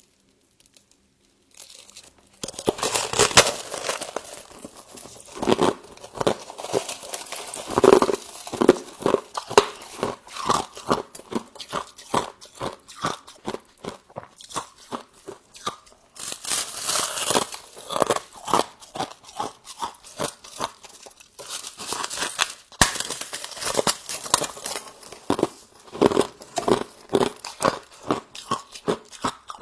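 Close-up crunching and chewing of ice frost: rapid, irregular crunches from biting and chewing the frozen crystals, with a few short pauses, starting about a second and a half in.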